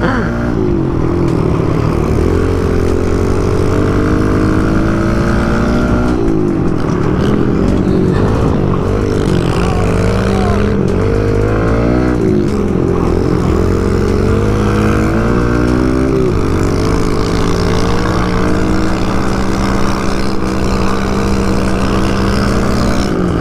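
A small off-road engine revving up and easing off again and again while being ridden, its pitch rising and falling several times, over a steadier engine drone.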